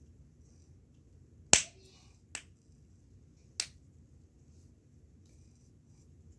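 Snapper fidget toy being snapped, three sharp loud snaps, the first the loudest, about a second apart.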